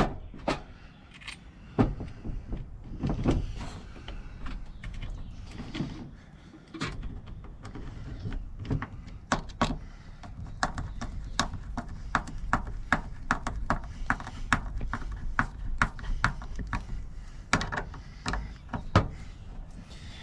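A long run of sharp clicks and taps from hand tools working on a Baldwin mortise lock, scattered at first and then quickening to a steady two or three a second.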